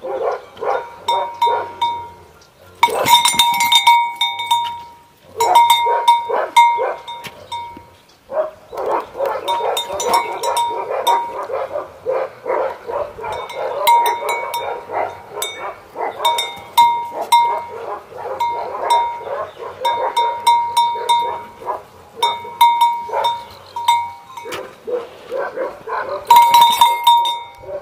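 Tibetan mastiffs vocalising, in a dense, busy stretch through the middle. Short runs of a small bell ringing sound on and off throughout.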